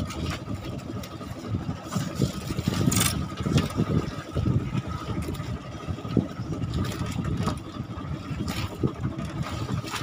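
Outrigger fishing boat's engine running steadily, with a few short knocks and scrapes as fish are handled in a styrofoam cooler, about three seconds in and again near the end.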